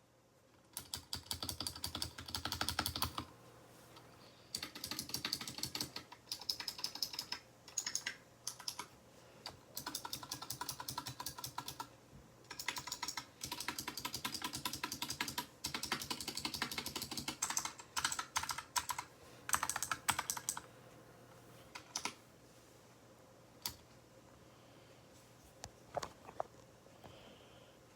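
Mechanical keyboard with new keycaps being typed on in fast bursts of clacking keystrokes, broken by short pauses and ending in a few scattered single key presses.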